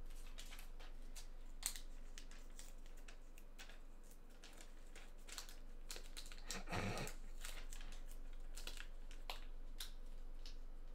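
Faint, scattered light clicks and plastic crinkling of hands handling trading cards and card holders, with one brief louder handling noise about seven seconds in.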